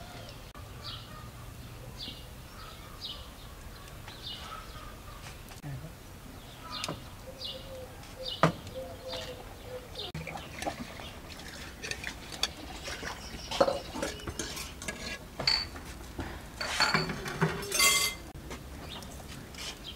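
Dishes and cutlery clinking, with sharp clinks and knocks that come thicker in the second half.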